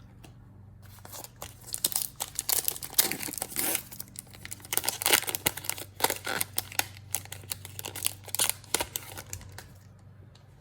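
Plastic wrapper of a trading-card pack being torn open and crinkled in the hands, an irregular crackling for most of the time.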